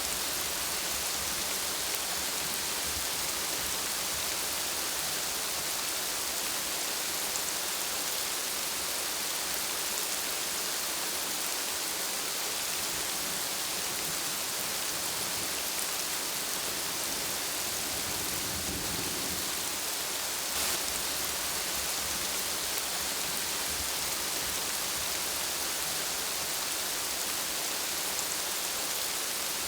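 Heavy rain falling steadily, an even hiss that holds at one level throughout.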